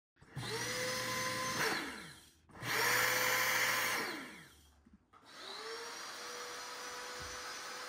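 Air mattress's built-in electric air pump, switched on and off twice: each time its whine rises as the fan spins up and sinks as it stops. About five seconds in it starts again and runs steady, inflating the mattress.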